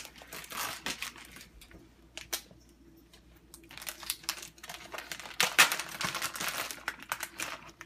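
Plastic pepperoni package crinkling irregularly as it is handled and opened, busiest in the second half.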